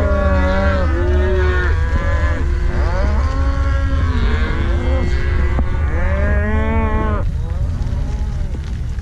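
A herd of cattle, cows and calves, mooing and bawling, many calls at different pitches overlapping, over a steady low rumble. The calls stop suddenly about seven seconds in.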